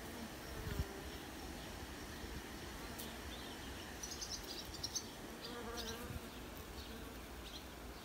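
Honeybees humming on a comb frame lifted out of the hive: a faint steady hum, with a single bee buzzing louder for a moment a couple of times.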